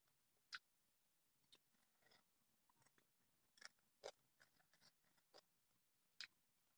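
Faint close-up eating sounds: scattered short wet clicks of chewing and lip smacks as rice and fried meat are eaten by hand.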